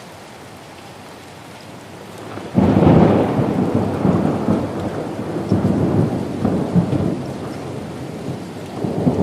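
Steady rain hissing, then about two and a half seconds in a rolling peal of thunder breaks in loudly and rumbles on, swelling and easing several times over the rain.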